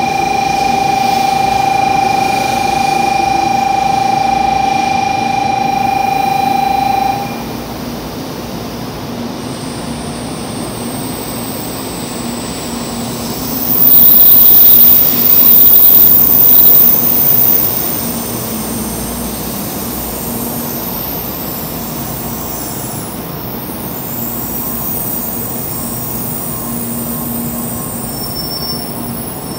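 N700 series shinkansen (7000-subseries set) pulling into the platform and slowing to a stop. A steady tone runs for the first seven seconds, then cuts off. A loud high squeal lasting a few seconds comes about halfway through, and a lower rolling rumble follows it.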